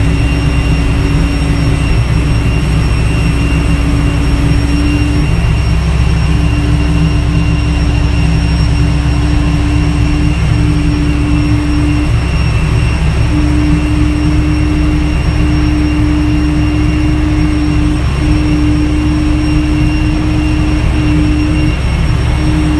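Towbarless pushback tractor's engine running loud and steady under load, heard from its cab while pushing back an Airbus A320, with a steady high whine above it and a hum that breaks off briefly every second or two.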